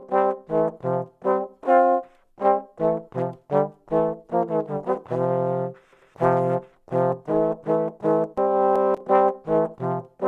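Brass music playing short, detached chords in a bouncy rhythm, two to three a second, broken by a few longer held chords in the second half.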